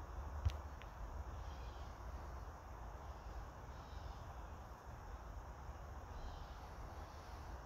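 Quiet outdoor ambience: a steady low rumble and hiss, with one sharp click about half a second in and a few faint high chirps here and there.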